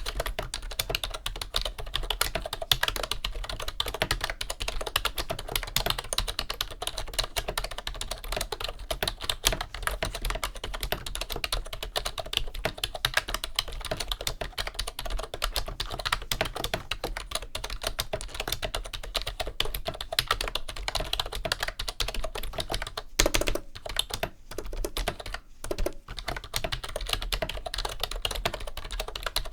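Continuous fast typing on a mid-1990s Wyse rubber-dome keyboard with full-height keycaps: a dense stream of key presses, with a couple of brief pauses about three-quarters of the way through.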